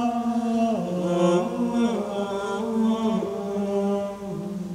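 Gregorian chant of the Mass Propers sung by male voices: slow, drawn-out notes moving stepwise between pitches.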